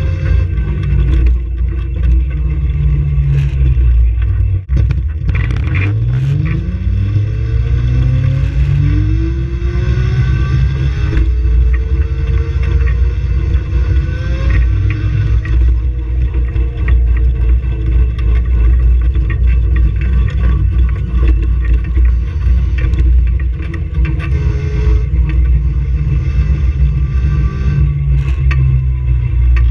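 Onboard sound of a small electric race car driving, picked up by a camera mounted on the car: a steady low rumble of road and wind noise, with a whine that climbs in pitch over several seconds as the car speeds up, and scattered knocks and rattles.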